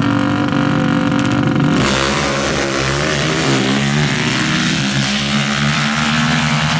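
Drag-racing ATV (quad) engines held at high revs in a steady note. About two seconds in, the sound changes abruptly to a rougher, noisier one with a wavering pitch.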